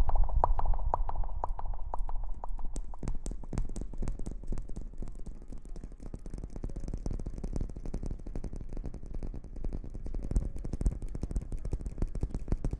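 Close-miked ASMR rustling: a dense, irregular run of quick small crackles and clicks over soft low thumps.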